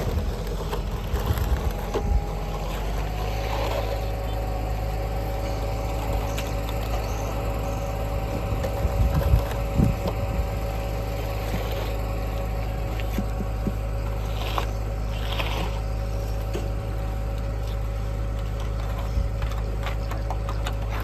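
Construction machinery engine running steadily while a concrete slab is poured, a low drone with a steady hum above it. A few knocks come about one to two seconds in and again around ten seconds in.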